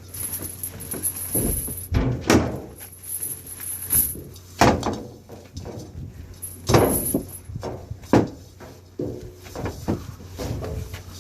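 Irregular knocks and clunks, several of them loud, over a steady low hum. The strongest come about two, four and a half, seven and eight seconds in.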